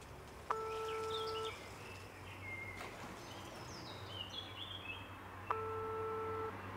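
Telephone ringback tone heard through a phone's earpiece: two steady one-second beeps about five seconds apart, the sign that the called phone is ringing and has not been answered. Birds chirp faintly between the beeps.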